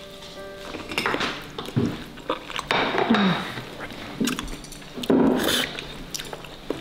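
Plates and cutlery clinking at a meal table, with close chewing and eating sounds in three louder noisy bursts.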